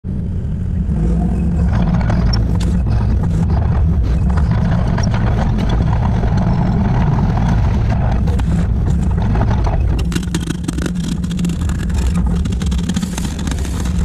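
Excavator engine running under load while its hydraulic breaker hammers concrete, the rapid hammer blows growing denser from about ten seconds in.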